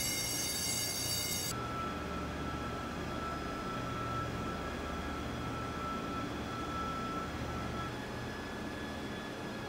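Self-propelled heavy-load transporter carrying a rocket stage section: a low steady mechanical rumble with a thin, steady high tone through most of it. About a second and a half in, a layer of high whining tones stops abruptly.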